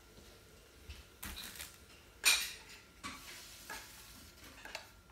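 A few scattered rustling and scraping handling noises, the loudest a short sharp rasp about two seconds in.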